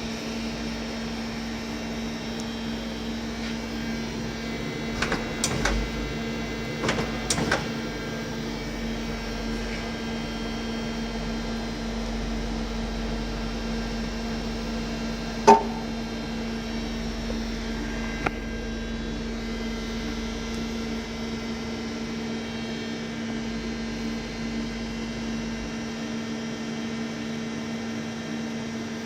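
XYZ Mini Turn 190 CNC lathe humming steadily under power, with a low rumble that swells and fades. A few light clicks come about five to seven seconds in, and one sharp click about fifteen seconds in.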